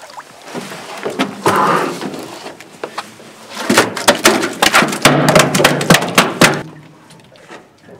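Water splashing as a halibut is hauled out over the side of an aluminium boat. It then thrashes on the checker-plate metal deck, a quick run of loud slaps and bangs lasting about three seconds before it goes still.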